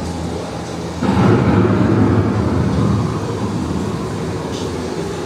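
Thunder sound effect from a ride's storm scene: a sudden deep rumble breaks in about a second in and slowly dies away, over a steady low hum.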